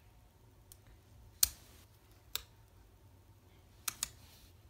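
About five short, sharp clicks and taps from fingernails and fingers handling a planner sticker and pressing it onto the paper page. The loudest comes about one and a half seconds in, and a quick pair comes near the end.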